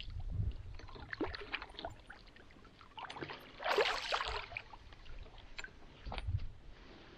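Water splashing beside a kayak as a kingfish (king mackerel) is grabbed by hand and hauled out of the water, loudest about three and a half to four seconds in, with scattered small knocks and clicks.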